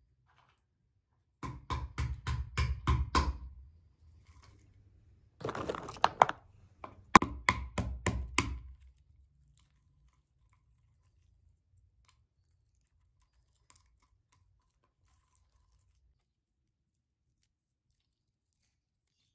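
Wooden pestle pounding walnuts on a wooden board, cracking the shells: quick runs of sharp strikes, about five a second, with a crunching stretch between them. After about nine seconds only a few faint clicks of shell pieces being picked apart.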